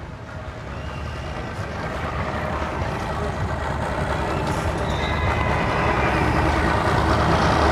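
Twin Mercury outboard engines running at idle as the boat motors slowly through the water: a steady low hum that grows gradually louder.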